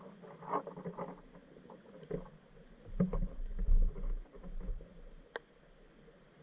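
Muffled knocks and clicks of an underwater camera being jostled in the water, heard through its waterproof housing, with a low rumble at its loudest between about three and four and a half seconds in and one sharp click a little after five seconds.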